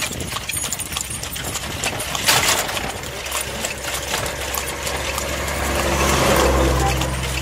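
Horse-drawn carriage on a road, hooves clip-clopping and the carriage rattling, with a loud clatter about two seconds in. A motor vehicle's engine passes close alongside, its hum swelling and peaking about six seconds in.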